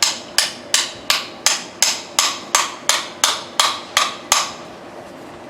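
Toy plastic hammer tapping plastic nails into a kids' tool-set piece: a steady run of about thirteen light strikes, roughly three a second, that stops about four and a half seconds in.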